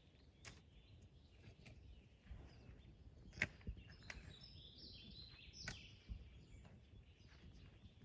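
Faint birdsong: scattered high chirps and short warbled phrases, growing busier in the second half, with a few sharp ticks, the sharpest about three and a half seconds in.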